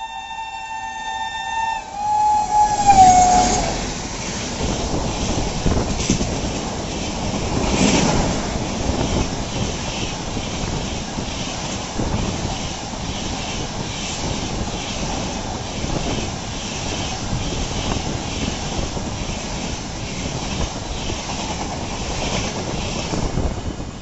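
WAP7 electric locomotive's two-tone horn blaring as it approaches at speed, the pitch falling as it passes about three seconds in. The passing LHB coaches then rumble by with a steady rhythmic clatter of wheels over rail joints, which fades as the last coach goes by near the end.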